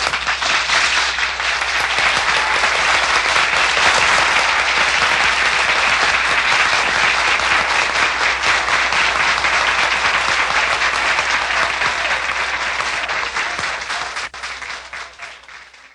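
A packed room of people applauding with dense, sustained clapping, which dies away near the end.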